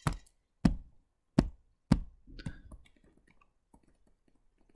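Stylus tapping on a tablet screen: four sharp taps about two-thirds of a second apart as pen strokes are put down, then faint scratchy ticks of handwriting that fade out.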